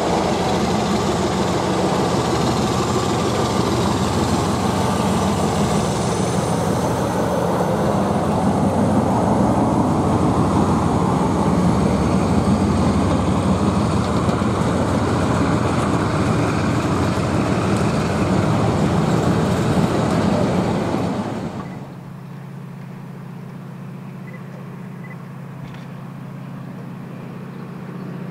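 Diesel locomotive engine working hard under power, loud and steady with a mix of engine tones and rushing noise. About three-quarters of the way through it drops sharply to a much quieter, steady low engine hum.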